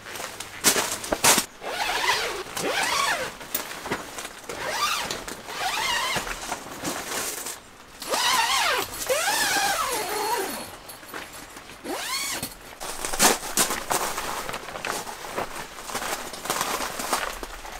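Zips on nylon awning side-wall panels being pulled, each pull a rasping buzz that rises and falls in pitch with the speed of the hand, amid rustling of the fabric walls. A few sharp clicks stand out, one near the start and a louder one about two-thirds of the way in.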